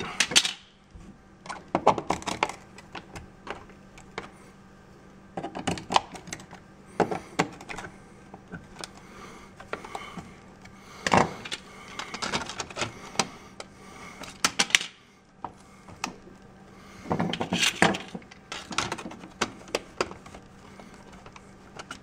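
Irregular plastic clicks and knocks from a white outlet cover plate and the switch and outlet devices being handled, shifted and fitted against ceramic tile, coming in scattered clusters with quiet gaps between.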